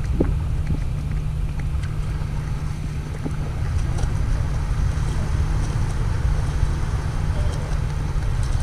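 Wind buffeting the microphone, a steady low rumble, with faint clicks from the shallow water and rocks underfoot.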